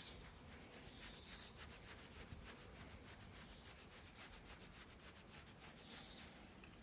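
Hand stroking a fox's fur: a faint, steady rubbing, with a few brief, faint high squeaks.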